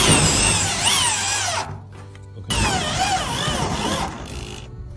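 Corded electric drill running in two bursts, stopping for a moment about two seconds in before starting again.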